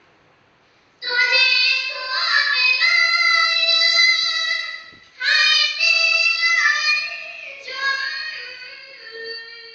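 A high voice singing a naat, devotional Urdu praise poetry, with no instruments and long drawn-out notes. It starts about a second in, breaks off briefly around the middle, then carries on more softly.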